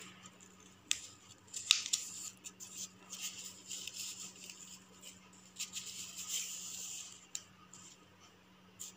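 Hands working silk thread on a small piece of cardboard: crisp rustling and scraping, with a few sharp clicks, the loudest just under two seconds in. A faint steady hum runs underneath.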